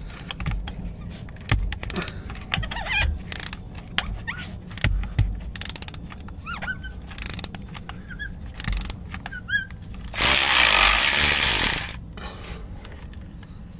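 Ratchet clicking in short runs on the tight, rust-seized starter terminal bolt of a Kubota tractor as it is worked loose. Near the end a cordless ratchet runs in one loud burst of about two seconds, spinning the freed bolt off.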